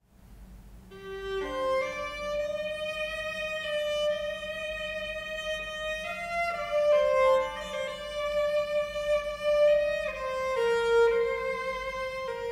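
Solo violin playing a slow melody in long, held notes, beginning about a second in.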